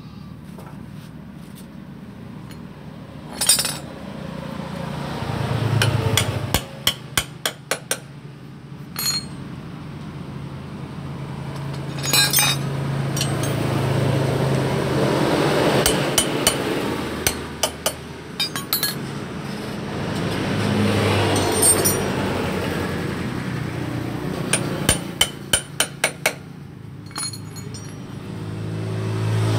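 Metal tools clinking and tapping against motorcycle engine parts, mostly in short quick runs of sharp knocks, over a low rumble that swells and fades several times.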